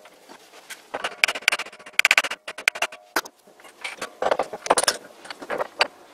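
Irregular metal clinks and knocks from hands working the stepped belt pulley along a lathe spindle during teardown, several a second, loudest about two seconds in.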